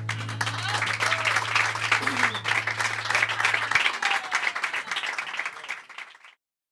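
Audience applauding after the song, dense clapping. A held low note from the band rings under it and stops about four seconds in, and the applause cuts off abruptly a little after six seconds.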